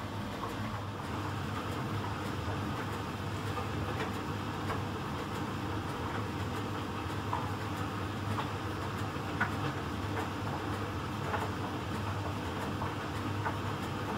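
Miele Professional PT 7186 XL commercial tumble dryer running in its heated drying phase. The drum is tumbling a load of kitchen and microfiber rags over a steady hum from the drum and blower motors, with scattered light ticks.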